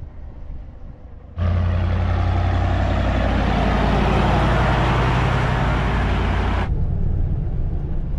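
A vehicle on the move: a steady engine drone under loud wind and road noise, which starts abruptly about a second and a half in and cuts off abruptly near the end.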